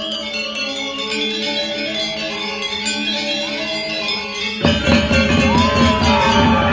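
Balinese gong kebyar gamelan playing, with ringing bronze metallophones. About four and a half seconds in, the full ensemble comes in suddenly and much louder, with heavy low notes.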